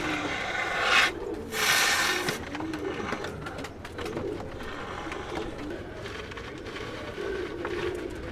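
Pigeons cooing repeatedly. A loud hiss comes in about a second in and lasts about a second: the can of expanding foam spraying without a nozzle.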